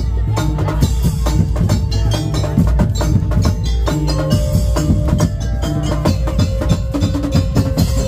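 Madurese tong-tong (daul) ensemble playing loud, percussion-led music: a dense beat of hard wooden strikes and drums, with pitched notes ringing over it.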